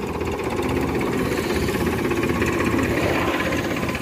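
Powertrac Euro 50 tractor's diesel engine running steadily with a fast, even pulse while pulling a trolley loaded with bundled mustard.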